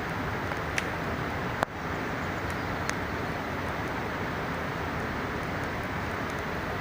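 Steady rushing of a mountain river, with a few sharp pops from a campfire, the loudest about one and a half seconds in.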